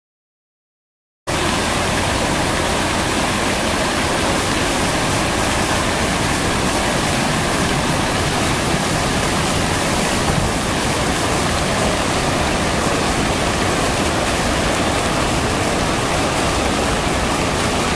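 Water jets of the World War II Memorial fountain spraying and splashing into its pool: a steady rush of water that starts about a second in.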